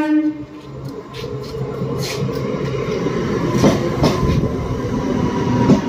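Electric local train (SER EMU) running into the platform, its rumble growing louder as it nears, with wheels clacking over the rail joints several times.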